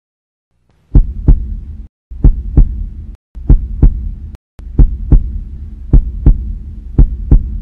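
Pairs of deep thumps about a third of a second apart, repeating roughly every second and a quarter like a heartbeat, over a low steady hum.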